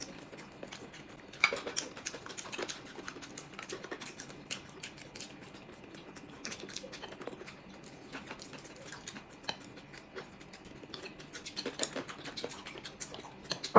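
Eating sounds at a table: wet chewing with scattered small clicks of chopsticks against plates and bowls, one sharper click about a second and a half in.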